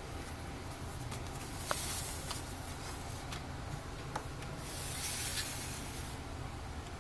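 Paper greeting cards being handled and slid over a table: soft papery swishes and rubs, twice, with a few light clicks, over a low steady hum.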